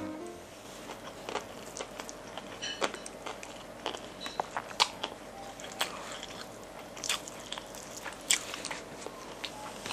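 Crispy fried chicken (ayam geprek) being torn apart by hand and chewed: scattered sharp crunches and crackles of eating.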